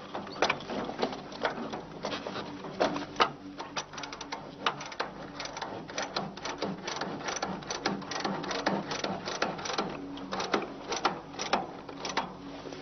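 Rapid, irregular mechanical clicking and clattering over a steady low hum.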